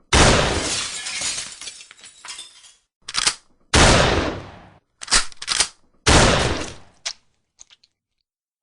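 Shotgun fired three times, each blast fading out over one to three seconds. Between shots comes a quick double clack of the action being worked to chamber the next shell, and a few light clicks follow near the end.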